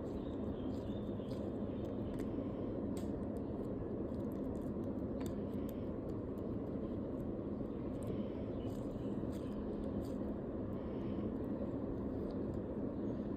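Steady low background noise, with faint scattered crinkles and clicks from a tape squishy being squeezed and handled.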